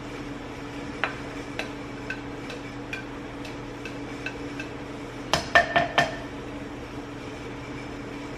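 Utensils and dishes clinking as food is dished onto a plate: a string of light taps, then a quick run of louder clinks about five seconds in, over a steady low hum.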